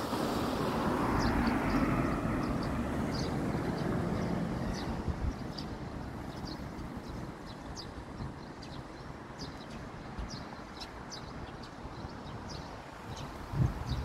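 Road traffic: a vehicle passes in the first couple of seconds and fades into a steady traffic noise. Short, high bird chirps repeat through it, about one or two a second.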